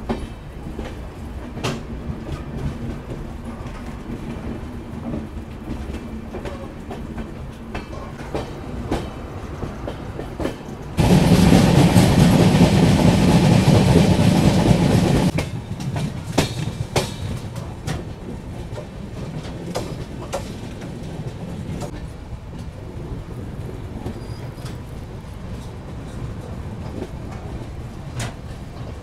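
Passenger train coach running on the rails, wheels clicking over rail joints, heard from the open coach doorway. About eleven seconds in, a much louder rushing noise comes in suddenly, lasts about four seconds, then drops back to the running sound.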